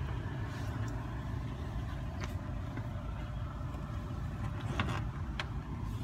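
Steady low rumble of a 2010 Mitsubishi Lancer idling, heard inside the cabin, with a few faint clicks.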